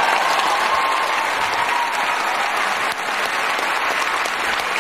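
Large audience applauding steadily after a question.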